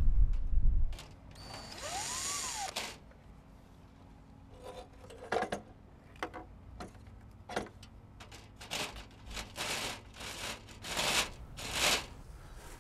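Wind gusting on the microphone at first, then a brief rushing noise with a tone that rises and falls. After that, irregular clicks and scrapes of copper lightning-protection cable being handled and fastened to the house wall from a ladder.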